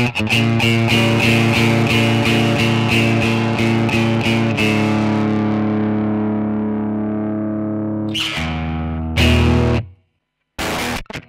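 Distorted electric guitar played through a Bazooka Joe preamp pedal. A chord is picked quickly in a steady rhythm, then held and left to ring. Two more chords are struck and choked off into a brief silence, then the playing starts again just before the end.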